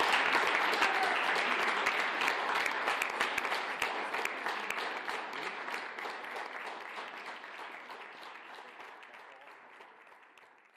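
Audience applauding at the end of a live performance, the clapping fading steadily away to nothing.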